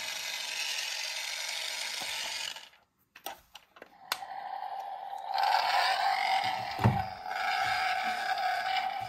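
Mickey Mouse Rev and Glow racer toy car revving: a steady whir for about two and a half seconds, a few clicks, then a rising whir about two seconds later that settles into a steady hum.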